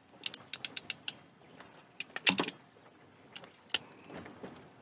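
Small sharp clicks and rattles from handling electrical wires and plastic-insulated bullet connectors: a quick run of about six clicks in the first second, a louder cluster a little past two seconds, and a few more later.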